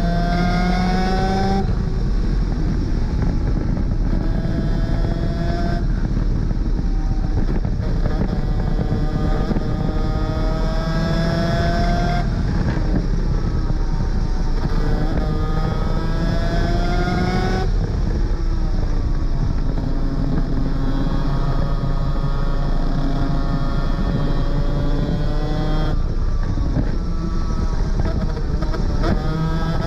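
Superkart's 250cc two-stroke engine under hard racing load, its note climbing in pitch for several seconds at a time and breaking off at each gear change or lift, about half a dozen times.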